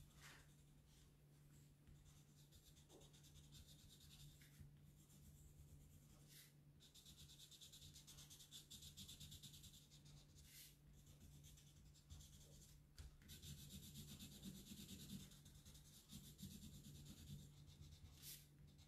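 Faint scratching of a black marker pen colouring in on paper, in runs of short strokes, over a steady low hum.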